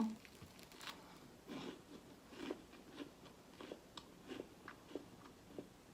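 Close-miked chewing of crispy, rather dry garlic bread: soft crunches at an uneven pace of about two a second.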